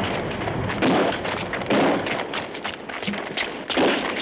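Action-film sound effects: a dense run of sharp bangs and crackles, with heavier bangs about a second apart.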